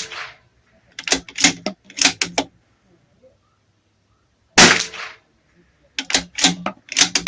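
A .22 LR Bergara B14R bolt-action rifle firing: the tail of a shot at the very start and a second shot about four and a half seconds in, each followed a second later by a quick run of sharp metallic clicks as the bolt is worked to eject the case and chamber the next round.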